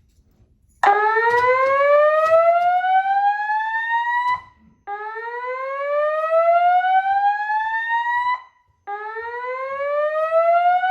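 Wheelock ET1010-WS-24 speaker strobe sounding a slow whoop evacuation tone: three rising sweeps, each climbing in pitch for about three and a half seconds and then cutting off. The first sweep starts about a second in.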